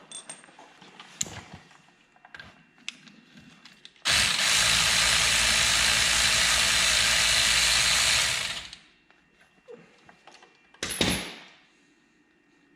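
A power tool runs steadily for about four seconds on a brake caliper bolt and winds down, with a short second burst near the end, backing out the 18 mm caliper bolts. Light metal clinks of tools and parts come before and between.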